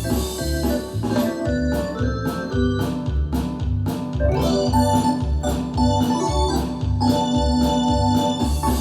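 Yamaha DX7 FM synthesizer playing an organ-like patch: held chords over a moving bass line, with a steady drum beat underneath.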